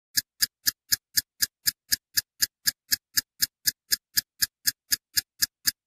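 Steady, evenly spaced ticking, about four ticks a second, laid under the end screen.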